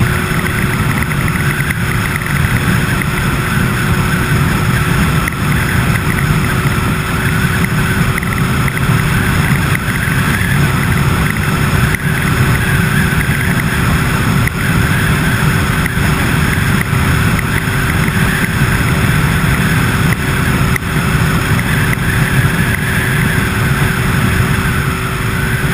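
A vehicle running steadily: an even low rumble with a constant whine held over it.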